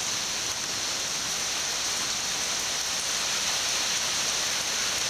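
Steady rain from a rainstorm falling, an even, unbroken hiss.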